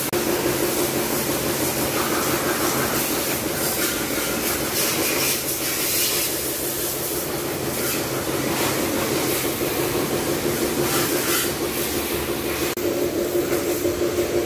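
Pressure washer running: a steady pump hum under the hiss of the high-pressure water jet spraying a motorcycle.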